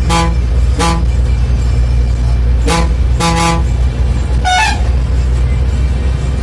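A bus's horn tooting in four short blasts: one at the start, one about a second in, and two close together around three seconds, over the steady low drone of the bus's engine. A brief, higher-pitched horn toots once about four and a half seconds in.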